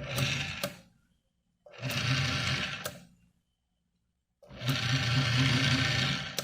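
Ilco 017 automatic key duplicator's motor and cutter running in three short bursts, each starting and stopping abruptly with a click, the third about two seconds long. The machine stops each time the start button is let go, which the owner finds odd because on earlier tests the button stayed in.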